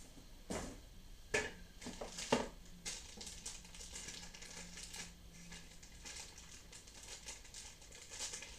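Clear plastic wrapping crinkling and crackling as a toy part is pulled out of it by hand, with several sharp crackles in the first three seconds and lighter rustles after.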